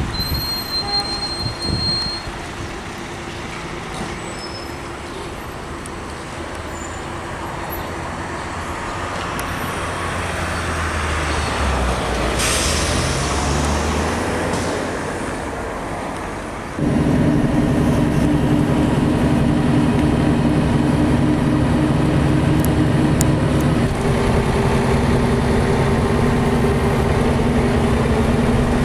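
Street traffic noise that swells as heavy vehicles pass, with a brief hiss near the middle. Then an abrupt cut to a bus's engine droning steadily, heard from inside the passenger cabin.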